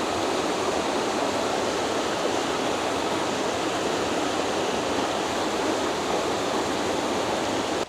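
Rushing water of a mountain creek in a narrow canyon: a steady, even rush with no pauses.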